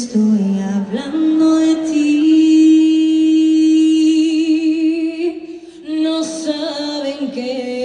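A woman singing unaccompanied, a capella: she holds one long note for about four seconds, letting it waver near the end, then sings a few shorter notes.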